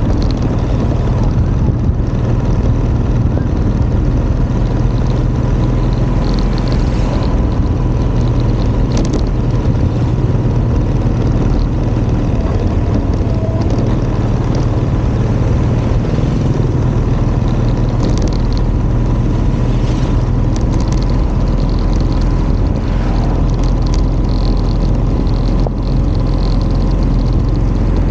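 Steady rush of wind on the microphone over a low, even engine hum while riding along a road.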